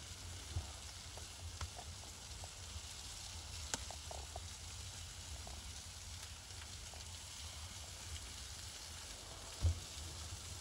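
Fat dripping from a whole pig on a spit roast into the fire below, sizzling steadily with scattered small crackles and pops over a low rumble. A single thump near the end is the loudest sound.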